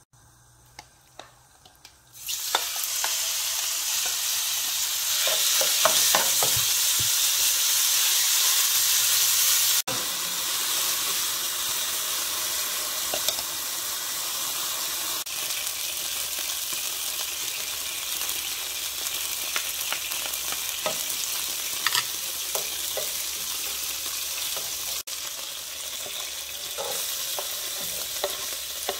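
A few light clicks, then food hits hot oil in a nonstick pan about two seconds in and starts sizzling loudly. Sliced chicken breast then frying with a steady sizzle, with scattered clicks of stirring.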